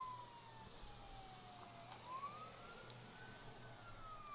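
Faint siren wailing slowly: its pitch falls, rises over about a second and a half, then falls again.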